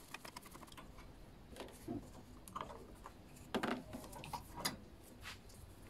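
Faint, scattered clicks and light taps of a screwdriver and small metal parts as the throttle linkage is worked loose from a lawnmower engine's carburetor.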